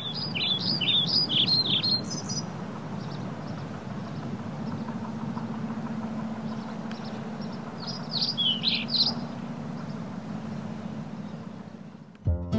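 A songbird sings two short bursts of quick chirps, one at the start and one about eight seconds in, over a steady low street hum. Music comes in just at the end.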